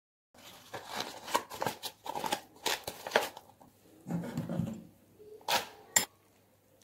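A metal spoon stirring and scraping a dry puffed-rice mix in a glass bowl: a run of crisp rustles and scrapes, with two sharp clicks of spoon on glass near the end.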